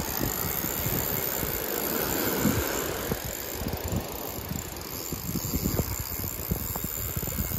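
Spinning reel's drag paying out line under a running fish, over a steady rumble of surf and wind buffeting the microphone.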